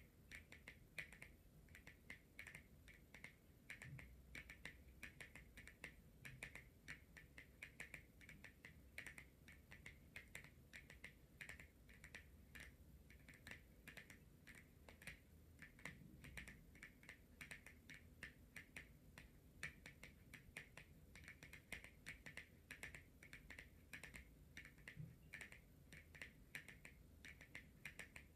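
Long natural fingernails tapping on a tarot card: a faint, quick, uneven run of light clicks, several a second.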